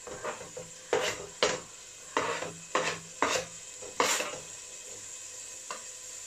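Knife blade scraping chopped onion off a plastic chopping board into a pot, about six quick scrapes in the first four seconds, with a faint sizzle of onion frying in melted butter underneath.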